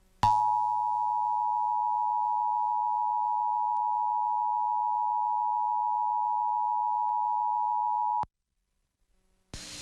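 Emergency Alert System attention signal: two steady tones sounding together, at about 853 and 960 Hz, held for about eight seconds and then cutting off sharply. It marks the start of an EAS alert, here a required monthly test. A hiss starts just before the end.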